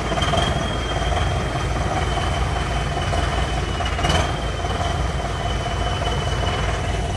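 Wheeled farm tractor's diesel engine running as the tractor creeps slowly into a box semi-trailer, with a steady high whine throughout and a single knock about four seconds in.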